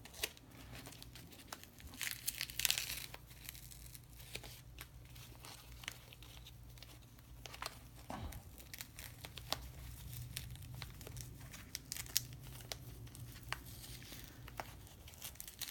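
Wrapping paper being carefully peeled and unfolded by hand: soft rustling and crinkling with scattered small crackles, busiest about two to three seconds in.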